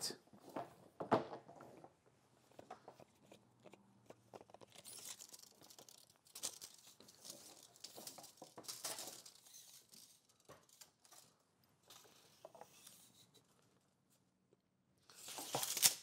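Faint handling noise: scattered rustling and light clicks, strongest in the middle stretch.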